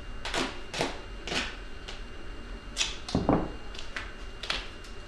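Adhesive tape being pulled off a roll and torn into strips by hand: about six short rips, the loudest a little past three seconds in.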